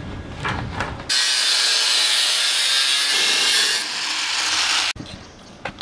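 Angle grinder disc grinding into a heavy-wall steel pipe: a harsh, even grinding noise that starts abruptly about a second in, eases a little near the end and stops sharply. Before it there is a low rumble with a few light knocks.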